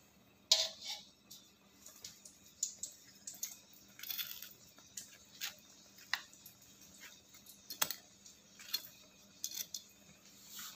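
Irregular light clicks and taps, a dozen or so spaced unevenly over a faint steady hum, the sharpest about half a second in and another near the end.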